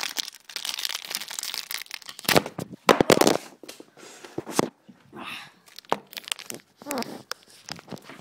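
Foil trading-card booster pack wrapper crinkling and tearing as it is pulled open with difficulty, with a run of loud crackles around three seconds in.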